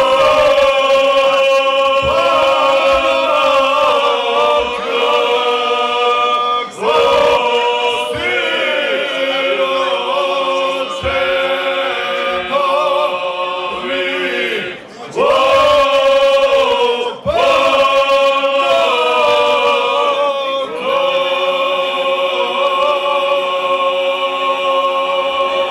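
Men's folk vocal group singing a cappella in the traditional Krajina style, several voices holding long notes together with a lead voice on a microphone. The song moves in long sustained phrases, broken by brief breath pauses about 7, 15, 17 and 21 seconds in.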